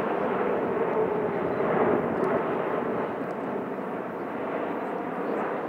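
Steady rushing jet noise from the Boeing 777X's two GE9X turbofan engines in a steep climb, easing off slightly over the second half.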